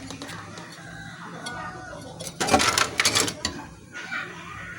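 Clatter and clicking of small hard objects being handled, loudest in a burst about two and a half to three and a half seconds in, over a faint steady low hum.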